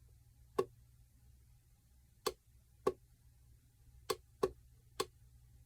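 Six sharp clicks at uneven intervals from the OK button of a digital calendar clock being pressed repeatedly to switch between background displays.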